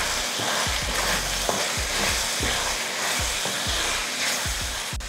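Chicken frying and sizzling in a stainless steel kadai while a wooden spatula stirs it in repeated strokes, mixing in ground masala powder.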